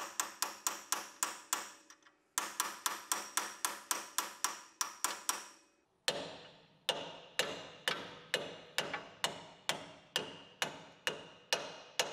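Hammer blows on a large socket used as a driver, punching a new kingpin bearing race into the steel swivel hub of a Nissan GU Patrol front axle: a steady run of sharp metallic strikes, about three to four a second, with two short pauses. About halfway through the blows take on a different noise, the sign that the race has gone all the way in.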